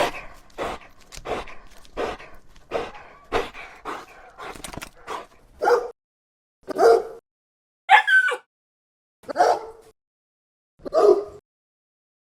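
A dog barking repeatedly: quick, fainter yips about twice a second at first, then louder single barks about a second and a half apart.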